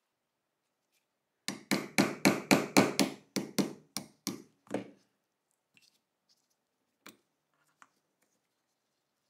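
Hammer tapping a pin punch to drive a pin out of a rusted Tokarev TT-30 hammer-and-sear housing: about a dozen quick metal strikes, roughly four a second, growing lighter toward the end. A couple of faint clicks follow.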